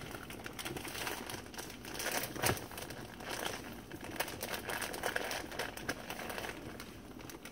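Plastic bag of brown sugar crinkling and rustling as it is handled and opened, with a sharper crackle about two and a half seconds in.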